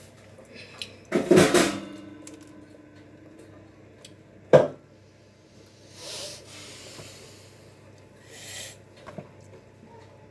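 Metal kitchenware clattering on a counter: a loud clang about a second in that rings on briefly, a sharp knock a few seconds later, then a couple of soft scrapes.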